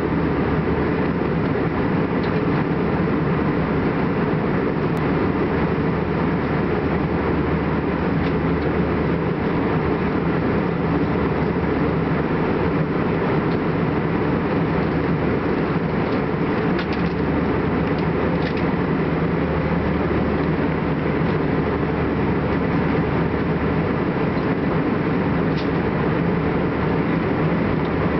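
Jet airliner cabin noise in cruise flight: a steady, even rush of engine and airflow, heaviest in the low range, with no change in level.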